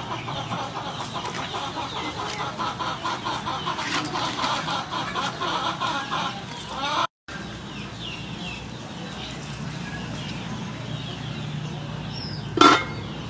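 Hens clucking in a busy, rapid chatter for about the first seven seconds, then a quieter stretch with a steady low hum, and one loud short sound near the end.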